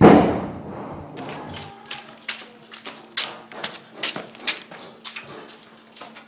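A loud thump, then footsteps going up a staircase: a run of sharp taps, about two a second.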